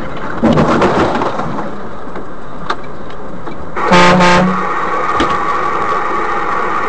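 Road and engine noise from a truck driving on a highway, with one short horn blast about four seconds in.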